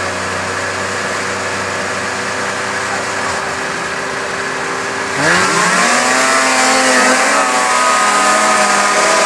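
Racing snowmobile engine idling steadily, then about five seconds in revving up sharply in a rising sweep and holding at high revs as the sled launches up the hill climb.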